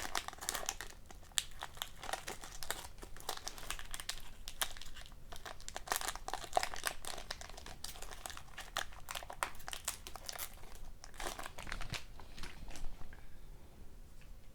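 Hockey card pack wrapper crinkling and tearing as it is opened by hand, a dense run of irregular crackles that thins out near the end.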